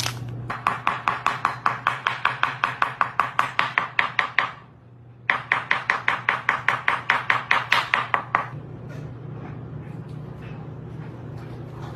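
Rapid, even tapping, about six or seven sharp strikes a second, in two runs of about four and three seconds with a short pause between.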